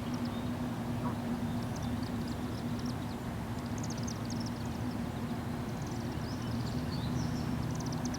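Steady low mechanical hum from a distant engine, with small birds chirping over it.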